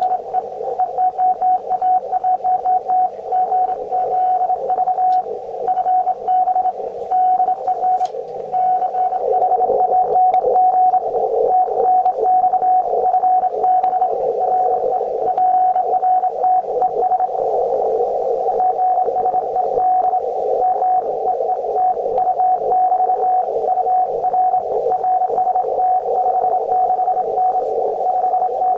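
Morse code keyed on a steady CW tone, a received 20-metre (14 MHz) shortwave signal heard through the transceiver's speaker over band hiss and crackle. The on-off keying is clearest in the first several seconds, with the noise filling in more later.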